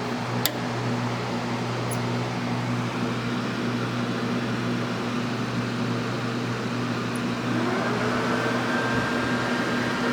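Desktop computer powering up: a steady fan hum, a short click about half a second in, then a whine that rises and levels off about seven and a half seconds in as a fan or drive spins up.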